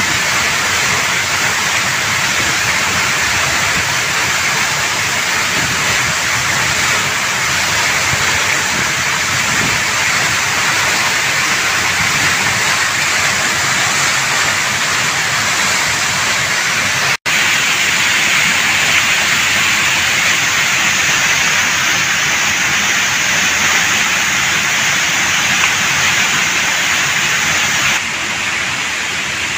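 Waterfall: the steady, loud rush of water falling down a three-tiered cascade. It breaks off for an instant about two-thirds of the way through and is slightly quieter near the end.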